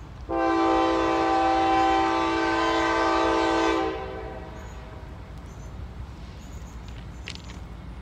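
Diesel locomotive air horn on an approaching CSX local freight train, sounding one long blast that starts just after the beginning and cuts off about four seconds in.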